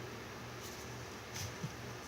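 Quiet room tone with a low steady hum, and a couple of faint brief handling sounds near the end.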